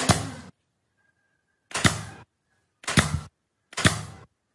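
Cordless nail gun firing four times into the foot of a wooden stair post, each shot a sharp crack that trails off over about half a second.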